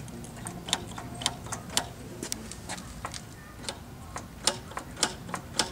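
A series of sharp clicks at uneven spacing, about three or four a second at first, then further apart.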